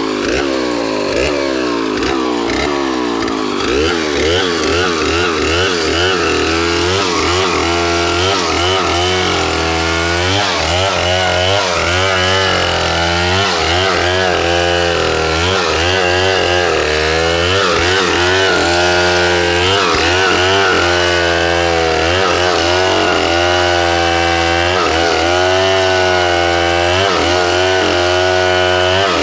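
Stihl MS070 two-stroke chainsaw running hard as it rips lengthwise along a coconut log to cut lumber, the engine pitch dipping under load and climbing back again and again.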